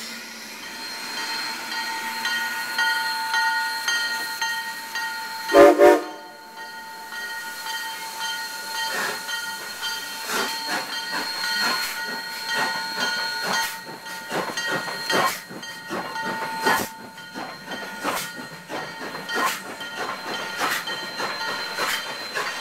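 White Pass & Yukon Route narrow-gauge steam locomotive No. 73 hissing steam, then two short whistle toots about five seconds in. After that come irregular exhaust chuffs, roughly one a second, as it gets under way.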